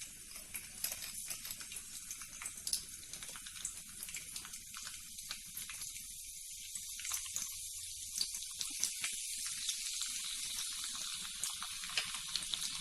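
Sliced garlic frying in hot oil in a kadhai: a steady sizzle with many small crackling pops.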